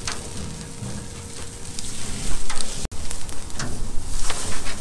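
Fat trimmings sizzling on the steel mesh grate of an open-pit wood-fire grill, with scattered sharp pops. The sound cuts out for an instant about three seconds in and comes back louder.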